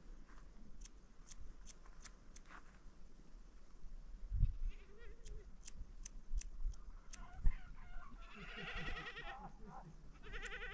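Livestock bleating: one long quavering bleat about eight seconds in and a shorter one near the end. Before that, a scattering of short sharp clicks and a couple of low thumps.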